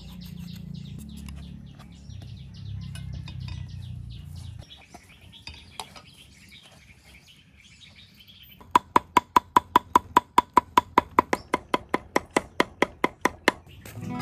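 Cleaver chopping red chillies and garlic on a wooden board: a fast, even run of sharp knocks, about four or five a second, through the second half. Before it, birds chirp over a low hum.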